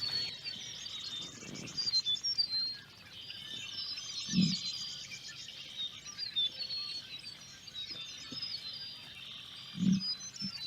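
Small birds chirping and trilling in the background, with a single deep emu drumming note about four seconds in and another near the end.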